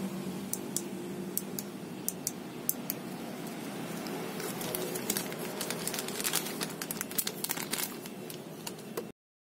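Clear zip-lock plastic bag crinkling as a small toggle switch is handled and slipped back inside. Scattered sharp ticks for the first three seconds give way to denser crinkling from about four and a half seconds in, and the sound cuts off suddenly near the end.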